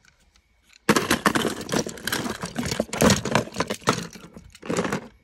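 Plastic toy trains clattering and knocking against each other and a plastic tub as a hand rummages through them: a dense run of rapid clicks starting about a second in, with a short last burst near the end.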